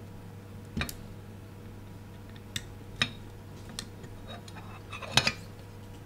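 Scattered sharp clicks and light metallic knocks as the instrument's end cap and Molex battery connector are handled and fitted into the housing, about five over a few seconds, with a quick double click near the end, over a low steady hum.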